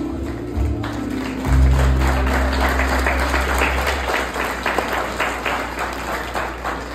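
Crowd applauding as waltz music ends. The music's low sustained notes stop about four seconds in, while the clapping builds from about a second in and then tapers off.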